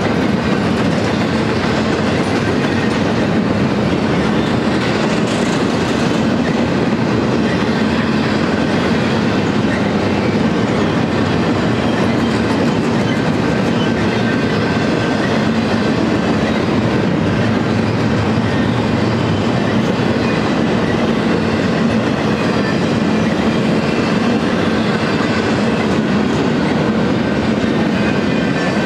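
Double-stack intermodal container train rolling past: the steady, loud rumble and rattle of freight cars' steel wheels on the rails, with a faint steady high-pitched tone over it.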